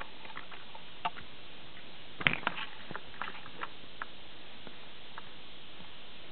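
Light clicks and taps of hard plastic toy parts being handled, over a steady hiss, with a short cluster of louder knocks about two seconds in.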